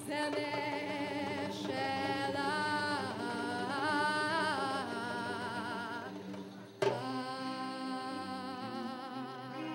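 Live band music with a voice singing long notes with a wide, wavering vibrato. A single sharp knock about seven seconds in, followed by steadier held notes.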